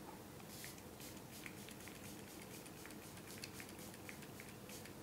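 Faint, short hiss of a pump spray bottle misting about half a second in, then quiet room tone with a few light ticks.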